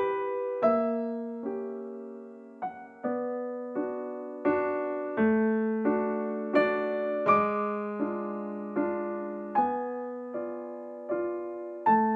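Solo piano playing a slow, gentle waltz: a low bass note on each downbeat followed by lighter chords, each note struck and left to ring and fade.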